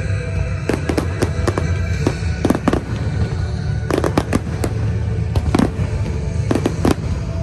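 Fireworks display: many sharp crackling pops and bangs, irregularly spaced, over a steady low rumble, with music playing underneath.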